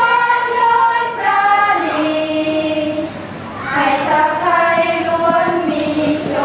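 A group of women singing together unaccompanied in slow, long-held notes that step down in pitch, with a short breath pause about three seconds in.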